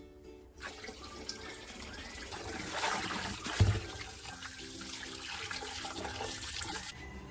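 Tap water running into a sink basin, starting about half a second in and stopping near the end, with a single knock partway through.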